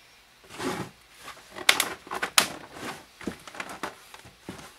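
PVC elbow fittings being pushed and twisted snugly into holes in a plastic 5-gallon bucket: plastic scraping and knocking, with two sharp knocks a little under a second apart near the middle.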